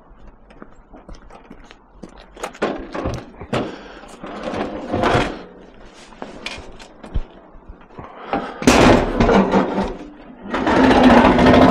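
Scrap metal being handled and loaded: a series of knocks, thuds and clatter, with two louder stretches of banging late on.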